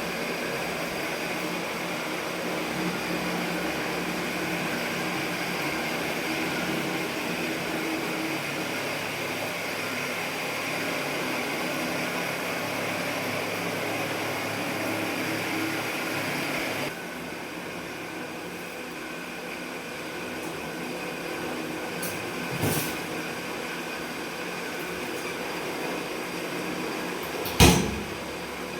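Steady mechanical whirring noise that drops in level about halfway through, followed by two short knocks, the second louder, near the end.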